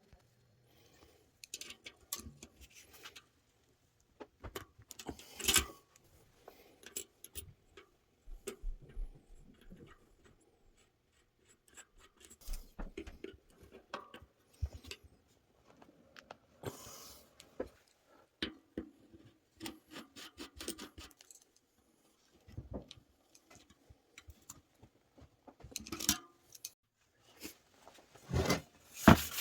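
Irregular clicks, clinks and light rattles of hand work in a workshop, like small metal parts and tools being handled, with louder knocks about five seconds in and near the end.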